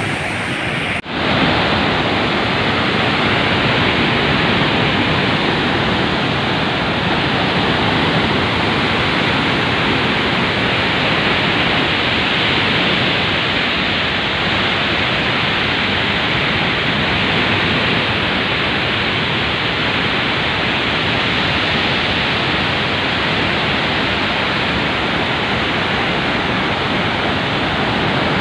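Floodwater rushing in a torrent over steps and walls, a loud steady rush of water. It dips briefly about a second in.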